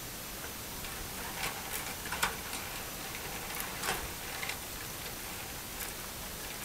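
Wires and connectors being handled inside an open metal fluorescent light fixture: light rustling with a handful of sharp ticks and clicks at irregular moments, the loudest about two and four seconds in, over a steady hiss.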